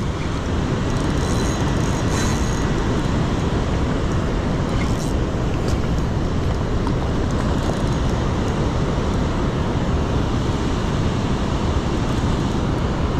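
Steady rushing of river water pouring over a low dam spillway, an unbroken noise with a few faint clicks about two and five seconds in.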